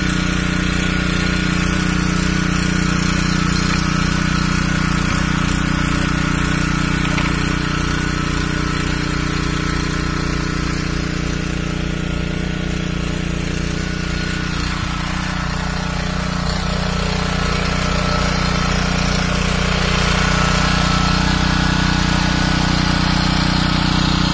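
Single-cylinder four-stroke petrol engine of a Bluelight mini garden tiller running steadily.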